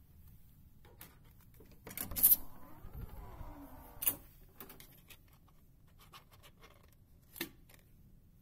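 Hotel room door lock clicking open and the door being pushed open about two seconds in, then the door latching shut about four seconds in. A lighter click near the end as a key card goes into the wall power slot.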